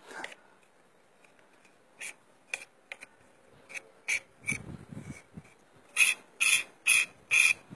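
Knife blade chopping and scraping frozen animal fat against a concrete slab: a run of short, gritty scraping strokes, sparse at first, then louder and about two a second near the end.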